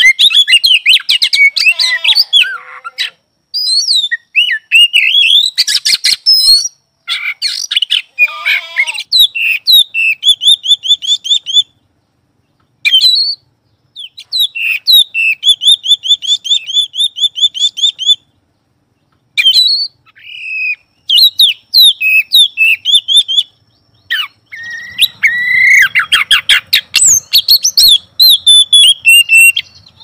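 Caged Oriental magpie-robin (kacer) singing loudly: a varied song of whistled and harsh notes with fast runs of rapidly repeated notes, broken by short pauses.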